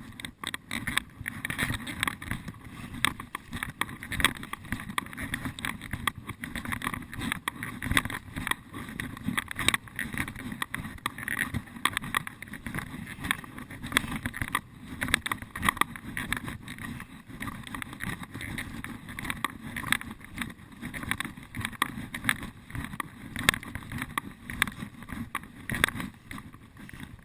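Footsteps crunching and rustling through dry forest litter and undergrowth, an irregular stream of crackles and snaps with the rub of the wearer's clothing and gear.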